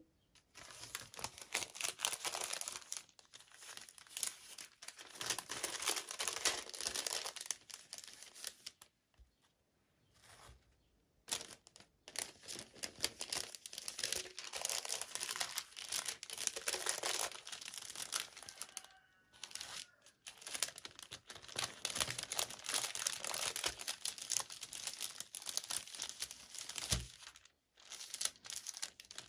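Toy packaging crinkling and tearing in stretches of a few seconds as a miniature doll is unboxed, with a few short pauses between.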